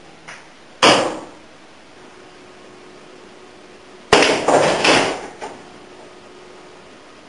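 Pool balls clacking on a billiard table: one sharp crack about a second in, then a quick run of four or five clacks about four seconds in as the cue ball drives into a group of balls.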